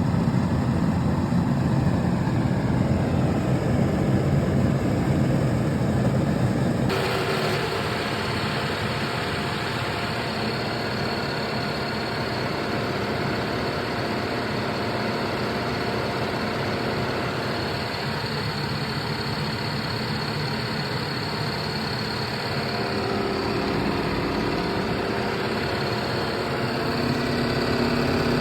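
Dehumidifiers running with a steady machine hum. About seven seconds in the sound changes abruptly from a deep, heavy hum to a lighter, brighter running sound with a faint high whine, as one unit gives way to another.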